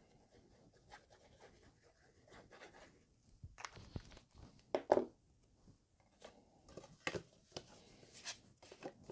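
Faint handling of cardstock while liquid glue is applied and the panel is laid down: soft rustling and sliding of paper with scattered light clicks and taps, the loudest a short knock about five seconds in.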